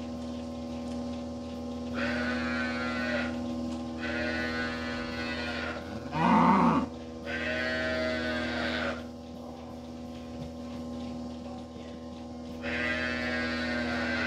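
Cattle bawling in a corral: four long, high-pitched calls and one louder, lower moo about six seconds in. A steady hum runs underneath.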